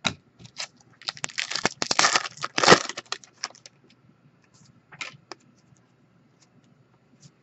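Foil wrapper of a Panini Donruss football card pack being torn open and the cards pulled out: about two seconds of dense wrapper crinkling starting about a second in, then a few light clicks of the cards being handled around five seconds.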